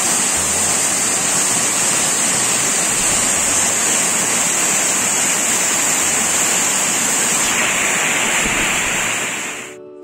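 Waterfall crashing onto rocks: a loud, steady rush of falling water that fades out near the end.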